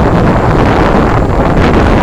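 Wind buffeting the microphone: a loud, steady rumbling noise.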